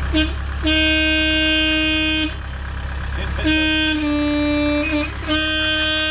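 A vehicle horn sounding in three long blasts, the middle one dipping slightly in pitch, over the low, steady rumble of an idling engine.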